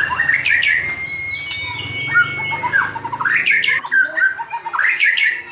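White-rumped shama (murai batu) singing: a run of quick chirps and sweeping whistled notes, rising and falling, one after another.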